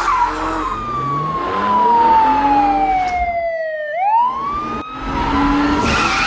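American police car siren in wail mode: one long, slow fall in pitch, a brief near-gap, then a quick rise back up that holds high toward the end. Car engine and tyre noise runs underneath.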